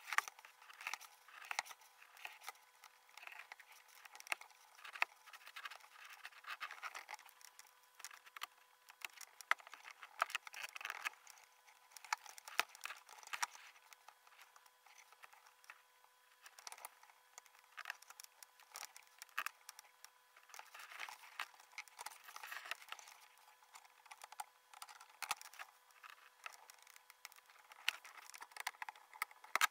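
Karl Storz laparoscopic needle holder and grasper clicking and scraping as they handle the suture, sped up five times, so the clicks and rubs run together into a rapid, uneven patter.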